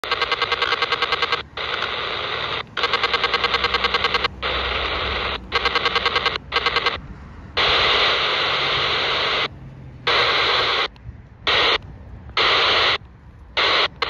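Radio scanner's speaker on 27.145 MHz receiving a short-range 27 MHz pulsed data link of the kind used by toy remote controls or wireless keyboards: bursts of rapid, even buzzing pulses about ten a second, broken by short gaps. Later the bursts turn to steady on-and-off static as the receiver is switched from AM to FM.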